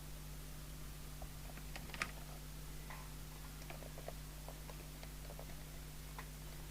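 Faint, scattered small clicks and taps of hands working on a plastic handheld CB radio while pulling off a control knob, one click a little louder about two seconds in, over a faint steady hum.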